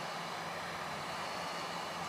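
Electric heat gun running steadily, a constant rush of blown air with a low motor hum, held over canvas to melt a beeswax and linseed-oil waxing paste into the cloth.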